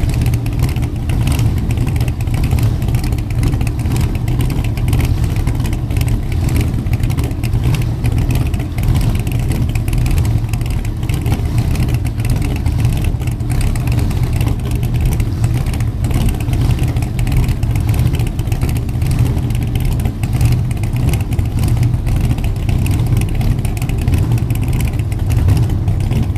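An engine running steadily with a deep, even drone.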